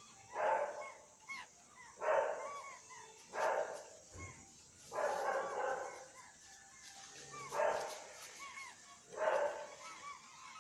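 An animal giving loud, short barking calls again and again, about six in ten seconds, with short chirps sounding between them.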